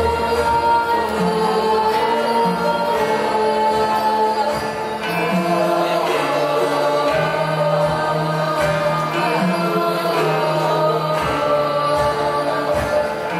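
A Javanese gamelan ensemble playing karawitan, with voices singing along in chorus.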